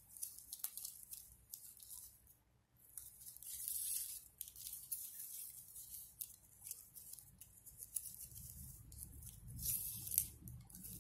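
Glossy ribbon strips rustling and sliding against each other and against fingers as they are threaded through one another and handled, in irregular soft scrapes with a brief lull about two seconds in.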